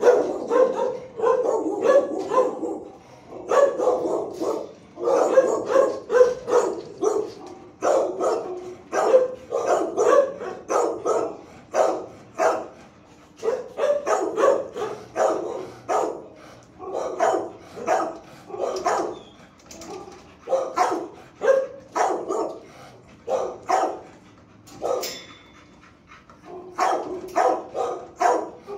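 Dog barking over and over in quick runs of several barks, with short pauses between the runs.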